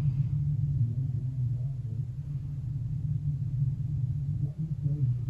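Steady low hum, with no other distinct sound.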